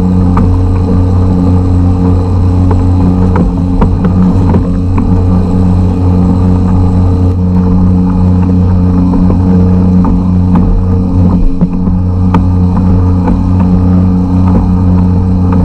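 A 52cc air-cooled two-stroke, trimmer-type outboard engine running steadily at constant speed, pushing a kayak along.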